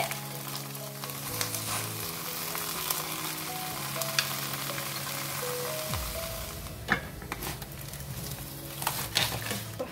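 Banana-leaf-wrapped stingray sizzling in a hot stainless-steel grill pan, with wooden spatulas scraping and knocking against the fish and pan as it is turned; a sharper knock comes about seven seconds in. Soft background music plays underneath.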